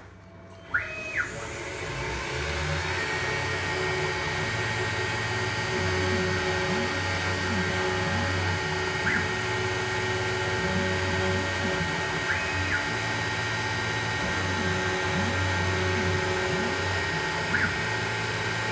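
Grizzly G0704 benchtop mill converted to CNC: after two clicks about a second in, the spindle comes up and runs steadily while the cutter works an aluminium part under hissing coolant spray. A few times the stepper-driven axes give a short whine that rises, holds and falls on a rapid move.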